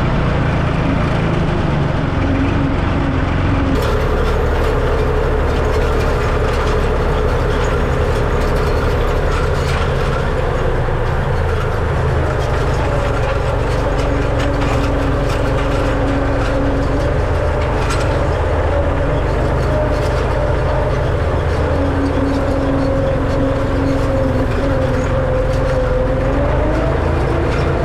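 Farm tractor engine running steadily while working in the hay field. About four seconds in, a higher steady whine and more clatter join it and hold.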